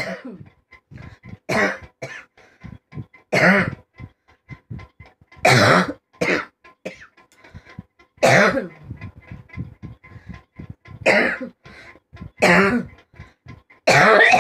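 A person coughing on purpose, one loud forced cough after another, about eight in all, a second or two apart.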